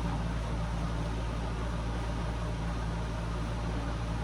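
Steady low mechanical hum with an even hiss behind it, unchanging throughout, with no distinct knocks or clanks.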